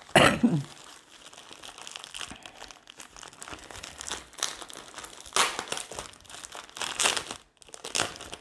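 Clear plastic bags and wrapping crinkling and rustling as they are handled, a bag of small packets of square acrylic diamond-painting drills among them. The crinkling comes in irregular bursts, the loudest right at the start.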